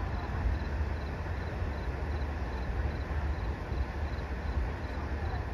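Insect chirping, a faint high chirp repeating evenly about three times a second, over a steady low rumble.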